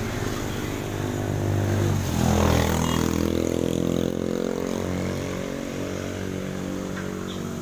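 Wuling SUV's engine running, revved once about two seconds in, its revs then sinking slowly back towards idle.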